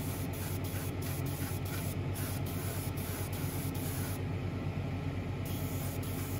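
Airbrush spraying metal etch primer, a steady hiss of air, with a steady low hum underneath.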